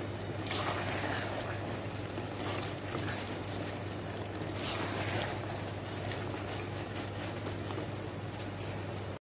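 Chicken karahi masala frying in oil in a steel pot, a steady sizzle, with a wooden spoon stirring and scraping through it a few times, over a steady low hum. It is the bhuna stage, the chicken and spices being fried down in the oil.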